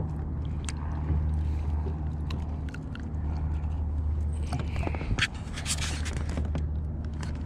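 Scraping and clicking handling noises as a small redfish is unhooked by hand in a kayak, with several sharp clicks clustered about five to six seconds in. A steady low hum runs underneath.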